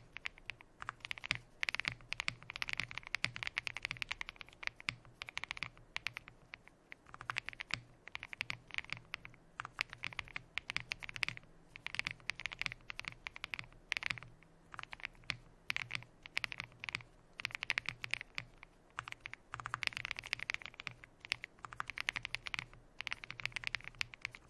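Fast typing on a gasket-mounted Meletrix Zoom TKL mechanical keyboard with lubed, filmed linear switches (NK Cream stems in Gateron Ink housings) on a polycarbonate plate, with PBT keycaps. The keystrokes come in quick runs broken by short pauses, over a faint steady hum.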